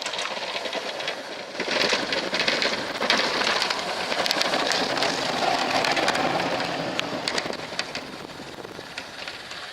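Truck-mounted Western snowplow blade pushing and scraping through light, fluffy snow: a dense rushing hiss with small crackles that swells about two seconds in and eases off near the end.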